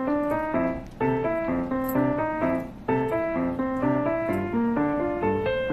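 Background music: a keyboard tune in quick, even notes, like a piano.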